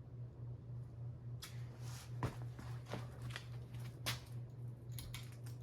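Westinghouse Apollo Elite ceiling fan motor running with a steady low hum. From about a second and a half in, a series of irregular clicks and rustles comes in over it.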